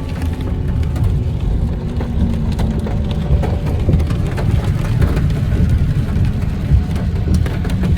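Hard rain, with scattered drops ticking, over a heavy steady low rumble.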